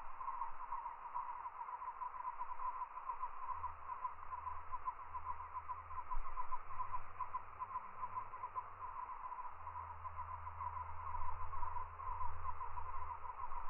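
A continuous chorus of rapid, pulsing animal calls, steady throughout, with a low rumble that comes and goes underneath.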